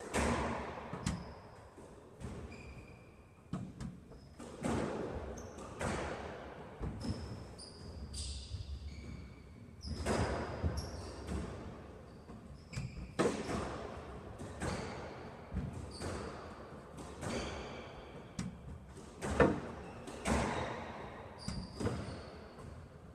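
Squash rally: the ball cracks off the rackets and the court walls about once a second, each hit echoing, with sneakers squeaking on the court floor between shots.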